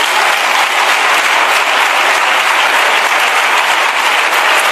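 A chamber full of legislators applauding steadily.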